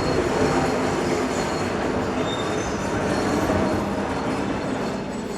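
Electric suburban train pulling into the station, its wheels rumbling and rattling over the rails with a thin, high squeal above.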